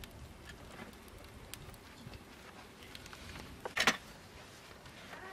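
One sharp clatter of dishes on a table about four seconds in, over faint steady background noise with a few light clicks.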